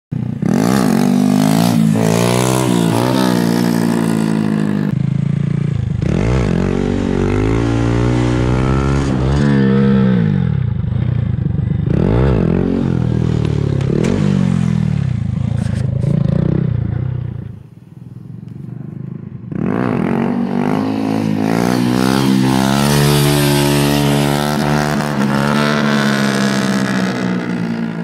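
Honda Grom's single-cylinder engine revving hard and easing off again and again as the bike is ridden, the pitch climbing and falling with each throttle pull. Past the middle it drops to a quieter low run for a couple of seconds, then revs up again.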